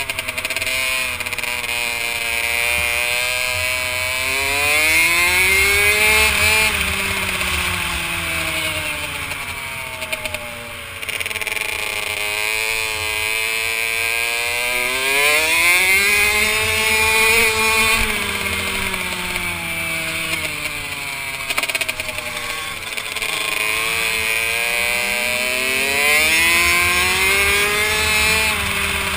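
Kawasaki KX65 two-stroke single-cylinder engine racing, heard from on board the bike: the revs climb hard and drop off again about three times.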